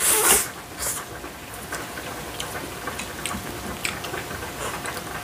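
Eating sounds: a short loud slurp of bibim-guksu noodles in the first half second, then chewing and mouth sounds with scattered light clicks of chopsticks on plates.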